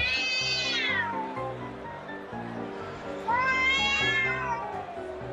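Drawn-out cat yowls, the threat caterwauling of a cat squaring up to another: one call trails off with a downward slide about a second in, and a second long yowl starts about three seconds in, rises, then slides slowly down in pitch. Background music with steady bass notes plays underneath.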